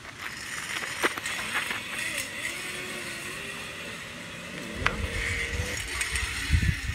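Zipline trolley pulleys running along a steel cable, a whirring whine that slides up and down in pitch. Near the end, wind buffets the microphone as a rider sets off and the whine climbs again.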